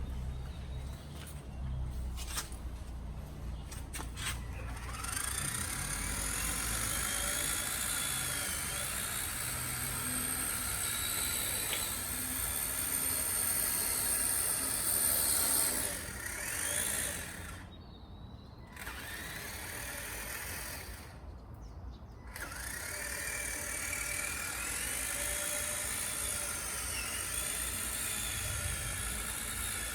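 Electric-converted Kyosho Blizzard RC snowcat running on its tracks: a high electric-motor and gear whine that rises and falls in pitch with the throttle. It stops twice for about a second a little past halfway. A few clicks come in the first few seconds, before it gets going.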